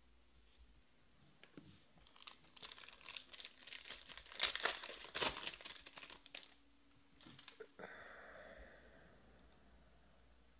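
Foil wrapper of a Topps Museum Collection baseball card pack being torn open and crinkled by hand, loudest about halfway through, then a softer brief rustle near the end.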